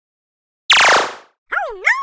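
Cartoon-style sound effects added in editing: a loud falling sweep about two-thirds of a second in, then a pitched tone that wobbles up and down in a boing-like warble near the end.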